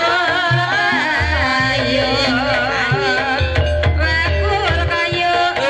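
Javanese gamelan music accompanying an ebeg dance: hand drums, a gong and tuned percussion in a steady rhythm, with a singer's wavering vocal line over it.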